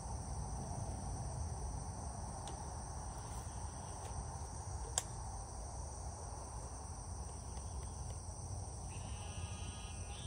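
Steady high-pitched trilling of insects, with one sharp click about five seconds in.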